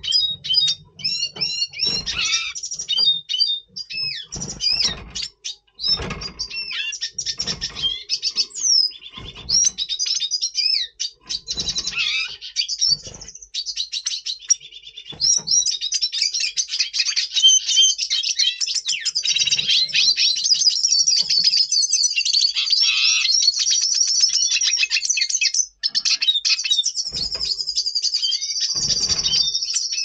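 Red siskin singing a fast, jumbled twittering song of high chirps and trills, in breeding condition. The song comes in short phrases at first, then runs on almost without a break through the second half.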